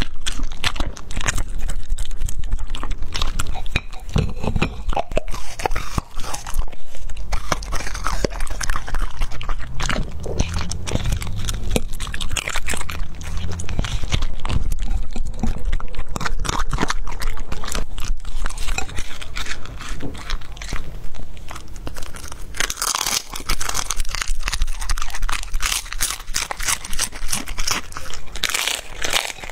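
A border collie crunching and chewing through the crisp shell of a whole roasted prawn close to the microphone: a dense, continuous run of crackling bites.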